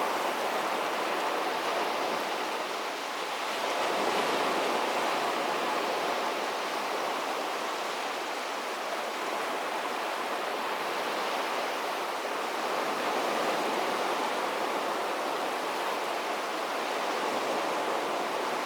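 Sea surf washing onto a beach: a steady, continuous rush of water with a slight swell about four seconds in.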